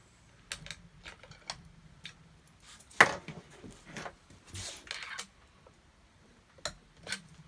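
Scattered clicks and knocks of handling an air rifle while reloading it, with one sharp loud knock about three seconds in and a couple of brief hisses soon after.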